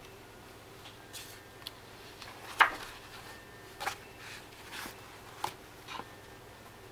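A toddler's hands turning and patting the pages of a large picture book: a string of short paper taps and rustles, the loudest about two and a half seconds in.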